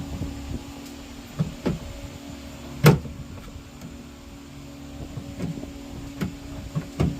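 Scattered knocks and clunks of a 6x9 speaker being test-fitted into a car's rear door panel opening, the loudest about three seconds in and another near the end, over a steady low hum.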